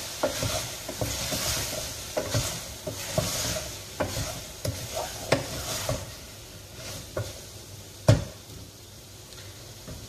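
Chicken pieces sizzling in a metal pot while a wooden spoon stirs them, with scraping and knocks of the spoon against the pot as the meat's own cooking liquid is cooked off. One loud knock about eight seconds in; the stirring and sizzle are quieter in the last few seconds.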